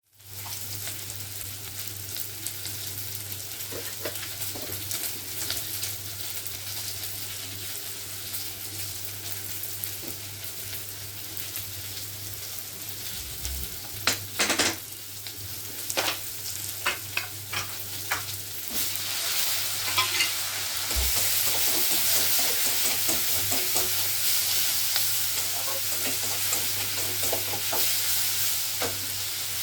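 Food frying and sizzling in hot oil in a pan, with a utensil stirring and clicking against the pan. The sizzle grows louder about two-thirds of the way through.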